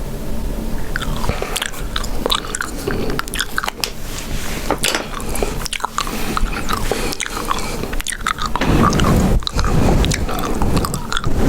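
Chewing gum close to the microphone: a run of sharp, wet mouth clicks and smacks, starting about a second in and growing louder and denser near the end.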